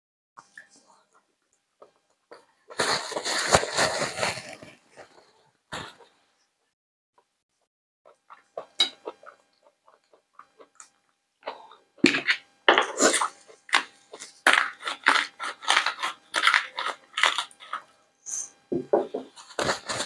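Close-miked eating and handling sounds: chewing of brined tripe and bread, then, in the second half, a long run of dense crackling and rustling as nitrile gloves and a paper napkin are handled.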